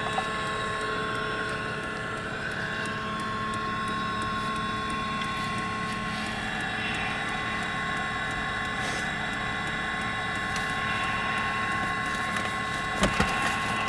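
Steady droning hum with several held tones, heard from inside a slow-moving car, with a few light knocks near the end.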